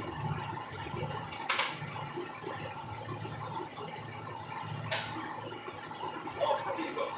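Tie-down strap buckle being worked while a mower is strapped to a trailer: two sharp clacks about three seconds apart, over a steady low hum.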